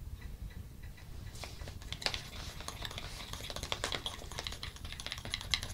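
A thin metal tool stirring thick coloured leather filler in a small clear plastic pot, blending the colours together. It makes a fast, irregular run of small clicks and scrapes against the pot, starting a little over a second in.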